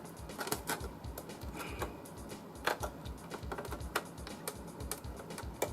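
Irregular small metallic clicks and scrapes of a screwdriver working against a stuck screw that will not come out.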